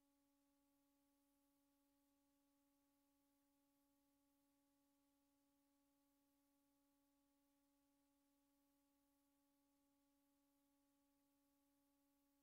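Near silence, with only a faint steady hum of a few even tones.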